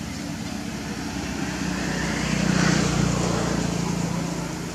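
Engine hum of a motor vehicle that grows louder to a peak about two and a half seconds in, then eases off again, like a vehicle passing.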